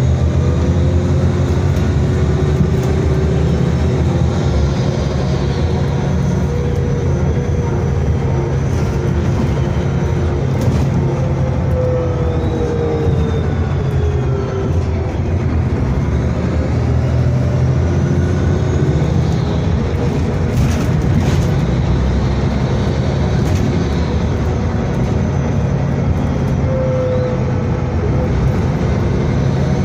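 Inside a moving VDL DB250 double-decker bus: the engine and drivetrain give a steady low drone, with a faint whine that rises and falls as the bus gathers and loses speed. A few short rattles from the bodywork.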